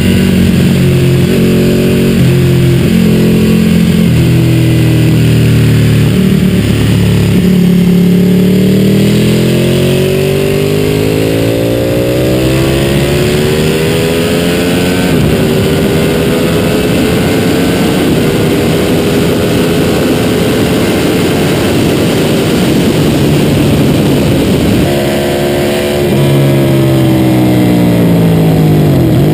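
Ducati 1199 Panigale S's Superquadro V-twin under hard acceleration on a race track, heard from onboard over wind rush. The engine note climbs in a long pull with a brief dip at a gear change, holds, then falls away near the end as the bike slows.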